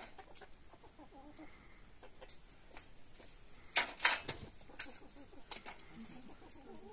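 Faint clucking of chickens, with a few sharp clattering knocks, the loudest a pair about four seconds in.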